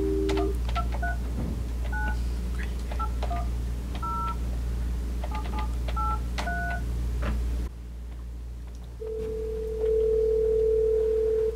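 Desk telephone on speakerphone: the dial tone cuts off, then about ten short keypad beeps with button clicks as a phone number is dialled. After a short pause, a steady ringing tone on the line near the end shows the call going through.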